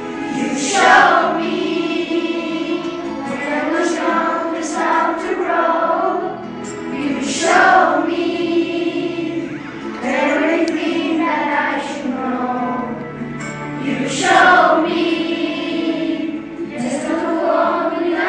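A group of boys singing a song together as a children's choir, the phrases swelling loudest about every seven seconds.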